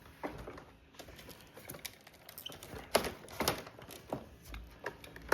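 Irregular plastic clicks and knocks of an upright vacuum's hose and wand being pulled out and handled, the sharpest about three seconds in, with a few low thumps near the end.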